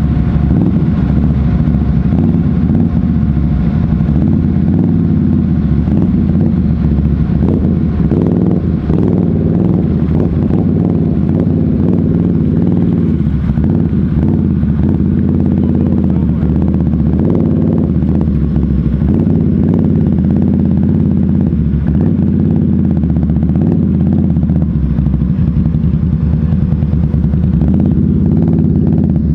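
ATV engine running loud and steady up close, as the quad is ridden.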